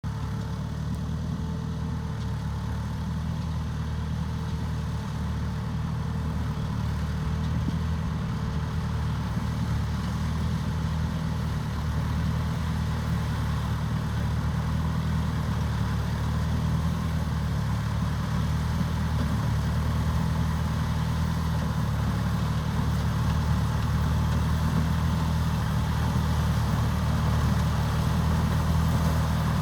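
Tractor engine running steadily, driving a pumpkin seed harvesting machine, with a low, even drone that grows gradually louder.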